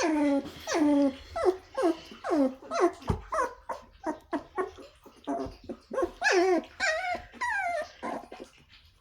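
Eight-week-old Aussiedoodle puppy vocalizing in a rapid string of short, high whines and yips, each falling in pitch, with a brief low thud about three seconds in.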